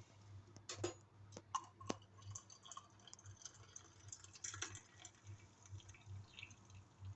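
Faint clicks, light knocks and small ticks of a mug and tea things being handled, over a low steady hum. Two sharper knocks stand out about a second and two seconds in.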